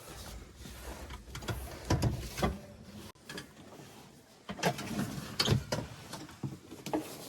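Irregular mechanical clanks and knocks over a low engine rumble; the rumble drops away about two and a half seconds in.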